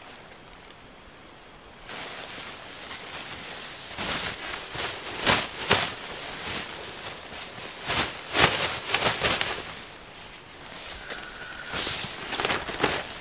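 Tent fabric being shaken out and handled: repeated rustling and flapping of thin nylon and mesh, in several swishing bursts after a quieter start.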